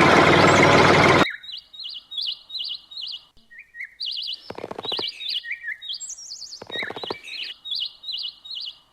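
A loud motor running cuts off suddenly about a second in. Birds then chirp in quick repeated high phrases.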